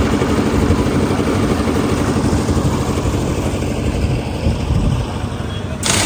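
Engine-driven concrete mixer running steadily on a building site, a continuous low machine rumble.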